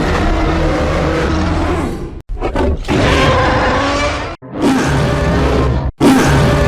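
Sound-effect vocalizations of the giant ape Kong, as made for the 2021 Monsterverse film: about four separate pitched roars over a deep rumble, each cut off abruptly before the next begins.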